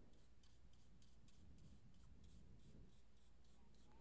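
Near silence, with a faint run of quick, light scratches: a small synthetic spotter brush stroking acrylic paint onto smooth paper, about three strokes a second.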